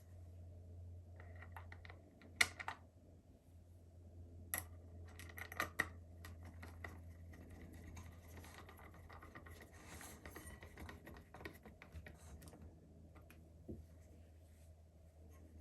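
Light clicks and taps of small plastic parts being handled and fitted together as a solar garden light is reassembled, loudest in a cluster about two to six seconds in, over a steady low hum.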